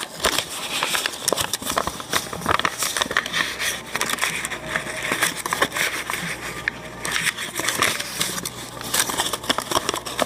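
Origami paper rustling and crinkling as it is folded by hand, with many small crackles and clicks of the paper being creased and handled.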